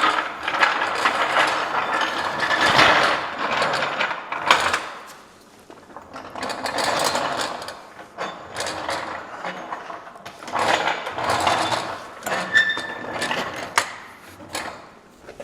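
Irregular mechanical clicking, rattling and rustling from hand tools and parts being handled, louder in the first few seconds, with several sharp ticks.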